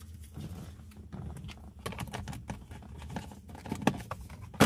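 Light clicks and rustling of hands working on the wiring connectors at the steering wheel hub, with a sharper click shortly before the end and a loud click at the very end.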